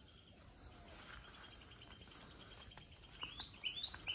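Faint outdoor ambience. A quick, faint trill runs in the middle. Near the end a bird's short repeated call notes come back, about three a second.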